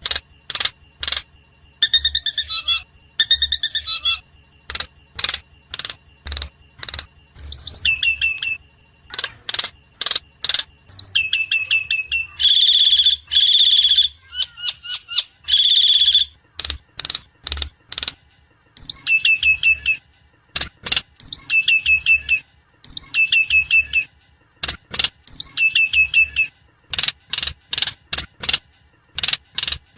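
Javan myna (jalak kebo) calling: a rapid, busy stream of sharp chirps and short descending note series, with a few longer harsh calls in the middle.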